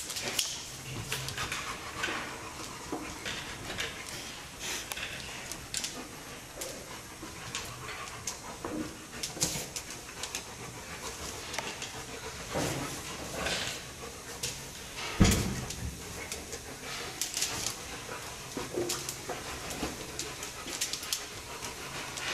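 Two sun bears play-wrestling on a concrete floor: hard breathing and huffing, with scuffles and claw scrapes, and one heavy thump about fifteen seconds in.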